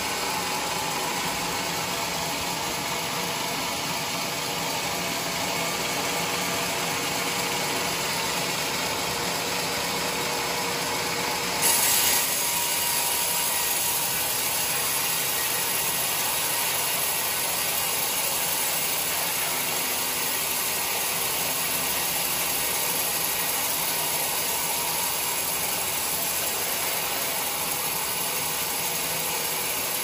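Sawmill band saw running and cutting lengthwise through a large teak beam: a steady mechanical whirr of blade and machinery. A short louder burst comes about twelve seconds in.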